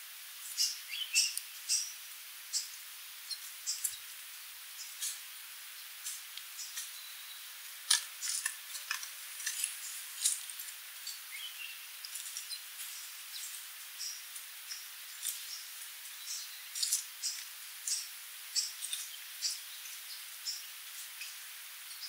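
Sooty babbler calling: a run of short, high-pitched chips at about two a second, irregular, over a steady faint hiss.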